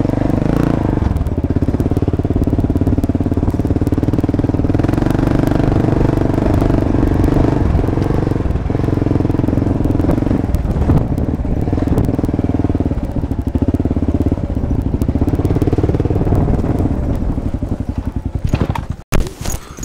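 Kawasaki KLR650's single-cylinder four-stroke engine running under load on a dirt trail, its note rising and falling slightly with the throttle. Near the end the engine note falls away and there are a few sharp knocks and clatter as the bike slides out and goes down.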